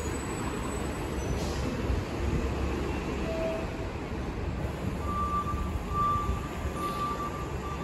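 Low steady rumble of transit buses' diesel engines idling and moving. From about five seconds in, a short electronic beep repeats a little more than once a second.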